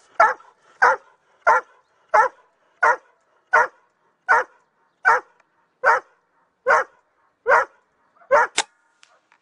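Crow cawing: about a dozen harsh caws in one steady, even run, slowing slightly towards the end. Near the end a single sharp crack.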